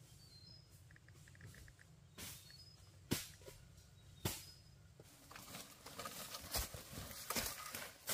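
Scattered soft knocks and rustles: three single knocks spaced about a second apart, then a busier patter of small clicks and rustles over the last few seconds.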